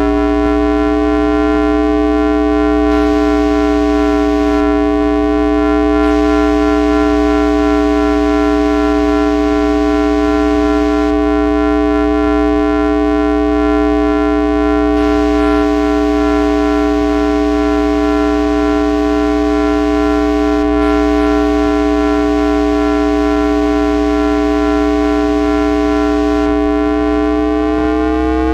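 GE two-level GTO-VVVF traction inverter and motor of an MBTA 1800-series car, picked up electrically with an inductor: a steady buzzing tone with many overtones, with a low hum beneath. The inverter is in synchronous 1-pulse mode with the train cruising at speed, so the pitch holds level, then starts to rise near the end as acceleration resumes.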